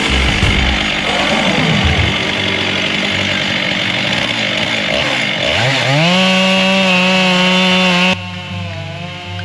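Stihl 661 chainsaw milling lumber in an Alaska mill, running under load with a dense, rough engine sound. About five and a half seconds in, its engine speed climbs sharply to a steady high-pitched full-throttle whine. It drops suddenly to a lower level near the end.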